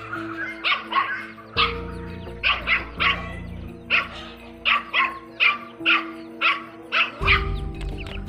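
A puppy yapping over and over, about two short, high barks a second, over background music.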